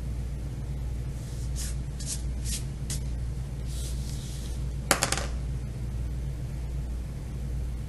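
Wax crayon scratching on paper in four short strokes, then a sheet of paper being slid and turned on a tabletop, with a sharp rustle about five seconds in. A steady low hum runs underneath.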